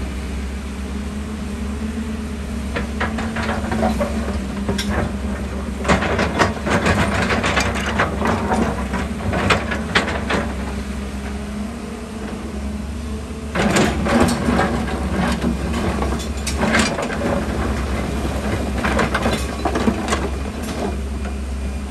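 Hyundai 220 LC excavator's diesel engine running with a steady low drone while bucketloads of rock tumble into a dump truck's body, clattering and knocking in two long spells.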